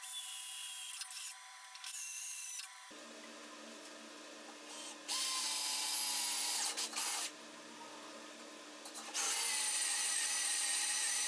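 Cordless drill boring holes into steel tubing, running in four bursts of one to three seconds each. Each burst is a high whine whose pitch sags slightly as the bit cuts into the steel.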